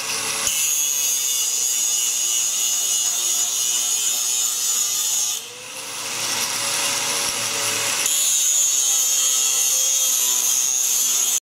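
Electric power tool cutting the sheet-steel valance panel of a steam locomotive, its motor whining steadily. About halfway through, the motor slows and quietens briefly as it loads, then picks back up to full speed.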